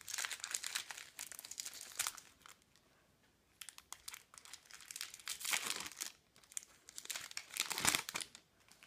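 Foil Match Attax trading-card packet being crinkled and torn open by hand, in irregular bursts of rustling with a short lull about three seconds in.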